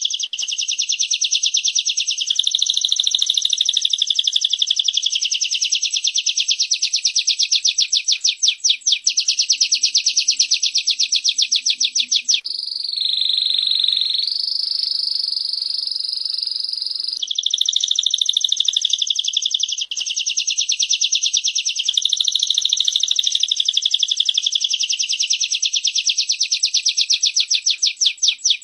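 Prenjak (prinia) and canary song: a high, very rapid continuous trill of fast-repeated notes, with a steady whistled note held for a few seconds near the middle.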